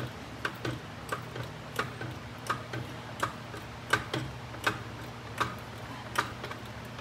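Hydraulic floor jack being pumped by hand, a sharp click on each stroke about every three-quarters of a second, as it raises a HMMWV front lower control arm to compress and seat the coil spring without a spring compressor. A low steady hum runs underneath.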